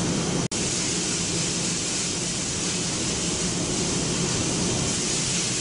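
Steady, loud hiss-like noise of factory machinery running around an extruder's continuous filter changer, with a low hum under it. The sound cuts out for an instant about half a second in.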